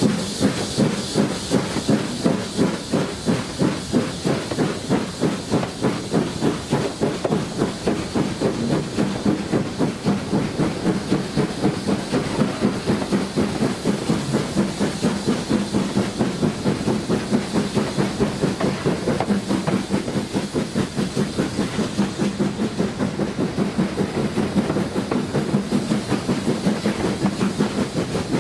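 BR Standard Class 4 2-6-4T steam locomotive 80080 working hard, its two cylinders giving a steady rhythm of exhaust beats at the chimney. Steam hisses in the first few seconds, with the clatter of wheels on the rails underneath.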